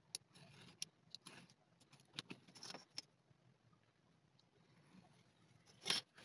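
Faint scraping and light clicks of a craft knife cutting leather along a steel ruler on a cutting mat, a few short strokes in the first three seconds. A louder metallic clatter near the end as the steel ruler is set down.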